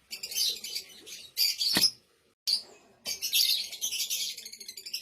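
Blue Fischer's lovebird singing a fast, high-pitched chattering twitter in two long runs, with a brief pause just after the middle. A single sharp click sounds just before the pause.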